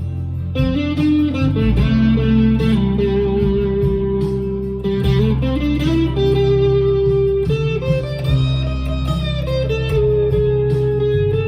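Chapman ML1 electric guitar playing a lead line of held notes, several of them bent or slid up and down in pitch, over a backing track with a steady bass line.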